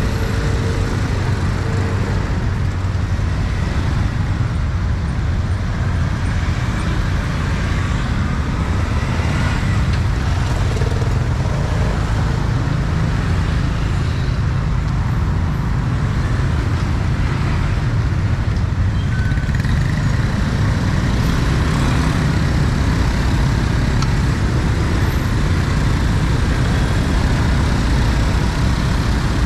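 Riding a motor scooter through dense city traffic: a steady rumble of scooter engines and passing cars.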